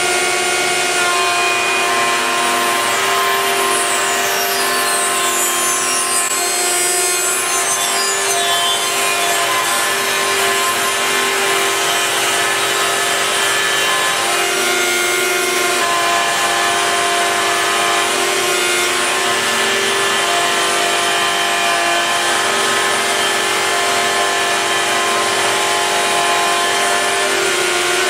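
Table-mounted router running steadily at a constant whine while a length of tough hardwood cap rail is fed past its 25 mm bit, the bit cutting a trench and throwing out chips.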